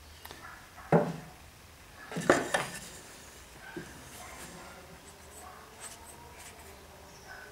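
Sharp knocks and clatters of a wooden board being set in place on a clamped wooden chest: one knock about a second in, then a louder cluster of knocks a little over two seconds in, then a few faint taps.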